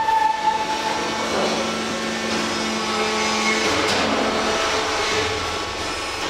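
WEIMA Vampire 1300 single-shaft shredder running and grinding wood: a loud, continuous grinding noise with steady whining tones. A high whine stands out in the first second, and a lower hum drops away about four and a half seconds in.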